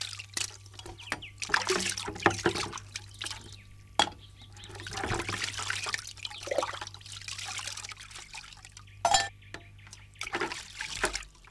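Water splashing and trickling as metal cooking pots are washed by hand in a bucket, with scrubbing, and a couple of sharp clinks of the pots.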